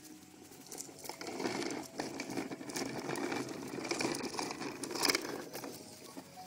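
Plastic wheels of a toddler's push-walker toy rolling over pavement: an uneven scraping, crackling rolling noise with a few clicks, from about a second in until just before the end.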